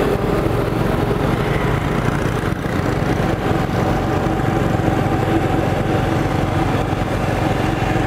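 Motorbike engine running steadily, close by.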